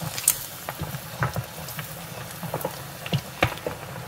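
Potato-starch-coated chicken wings deep-frying in a pot of hot oil: a steady bubbling hiss with irregular crackling pops.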